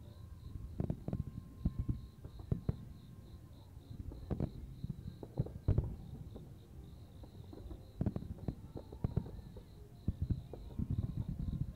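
Fireworks bursting in an irregular series of booms and crackles, heaviest about four to six seconds in and again near the end. Crickets chirp steadily throughout.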